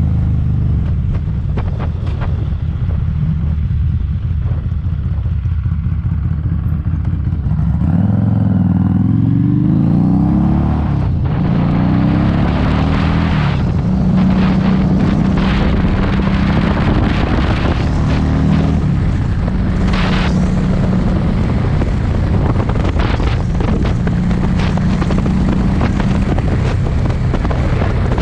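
Harley-Davidson Street 500's V-twin running through an aftermarket TAB Performance exhaust: steady at first, then rising in pitch as it accelerates about eight seconds in, dropping sharply near eleven seconds as it shifts, then holding a steadier note. Heavy wind noise buffets the helmet-mounted mic throughout.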